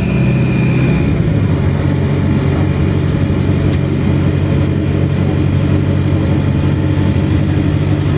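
City bus engine running steadily, heard from inside the passenger cabin, with a low even hum whose note shifts about a second in. A single short tick sounds midway through.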